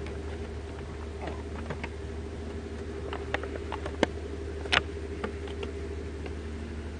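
Scattered light clicks and taps of a plastic water bottle and chopsticks being handled, the two loudest about four seconds and nearly five seconds in, over a steady low hum.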